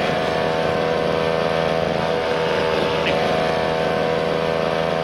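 A steady, unbroken motor drone with a constant hum.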